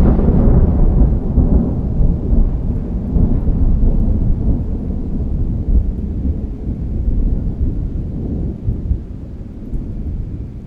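Thunder rolling after a clap: a long, low rumble with a few louder swells in the first half, slowly fading away.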